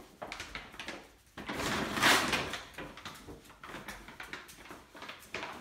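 Plastic dog food bag crinkling and crackling in irregular bursts as a piglet stuck head-first inside it moves and turns, loudest in a dense rustle about two seconds in.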